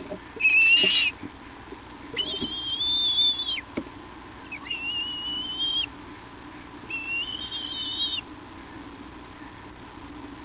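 Bald eagle giving four high, drawn-out whistled calls, each about a second long and slightly rising. The first and second calls are the loudest, and the last ends about two seconds before the close.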